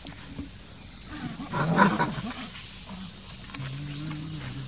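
Macaque calling: one harsh call about two seconds in, the loudest sound here, followed by a lower, steadier sound near the end.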